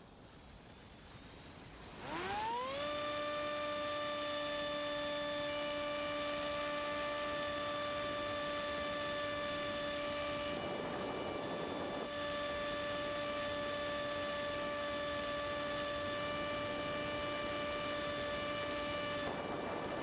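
Multiplex EZ Star model plane's electric motor and propeller spinning up from standstill with a quick rising whine about two seconds in, then holding a steady high whine at near full throttle. A brief rush of wind noise comes about halfway through and again near the end.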